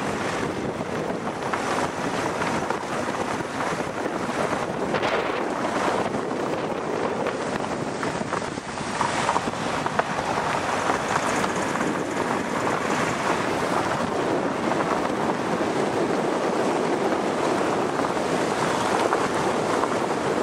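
Steady rush of wind and road noise from a car driving along a mountain road, with wind buffeting the microphone.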